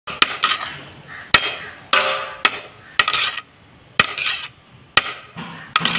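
A metal spoon knocking and scraping against a large aluminium biryani pot as the rice is turned over. There are sharp clanks every half second to a second, each followed by a short scrape, and the pot rings briefly about two seconds in.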